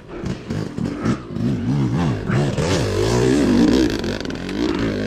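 Yamaha YZ250 two-stroke dirt bike engines revving hard and dropping back again and again, as the throttle is worked under load on a steep, rocky trail climb.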